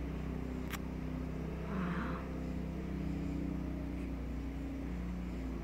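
A vehicle engine idling with a steady, even hum. A single sharp click sounds about a second in.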